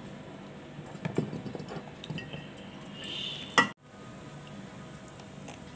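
Hand scooping oily, masala-coated raw mango pickle pieces from a steel bowl and dropping them into a glass jar: soft wet squishes, scrapes and small knocks. A single sharp click comes about three and a half seconds in.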